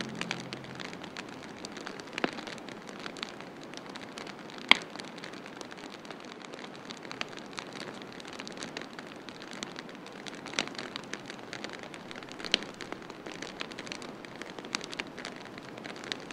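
Steady rain falling, with scattered sharp ticks and pops, the loudest about five seconds in.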